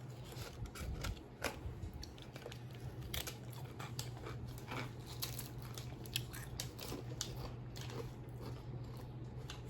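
Chewing and crunching of Pringles All Dressed potato crisps: many short, irregular crunches, over a steady low hum.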